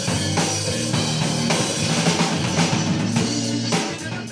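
Rock music with a drum kit and guitar playing, which fades down near the end.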